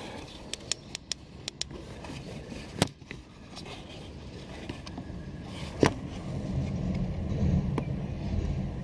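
Several sharp clicks in the first couple of seconds and two louder knocks, about three and six seconds in, over a low rumble that grows louder in the second half.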